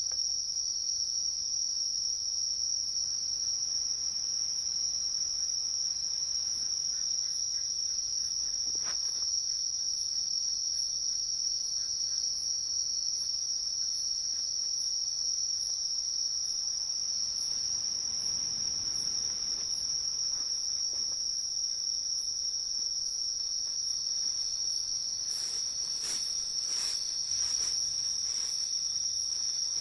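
Insect chorus, a continuous high-pitched shrill that holds steady, with a few faint clicks near the end.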